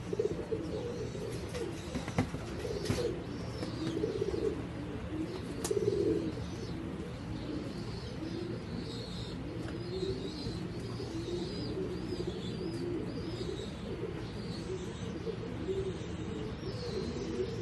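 Several doves cooing over and over, with high chirps from small birds, most of them in the second half.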